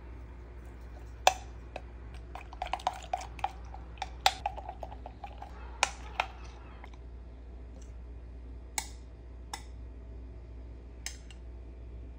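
Metal teaspoon stirring a milky drink in a glass, clinking against the glass wall with short ringing clinks: a quick flurry of them in the first half, then a few single taps a couple of seconds apart.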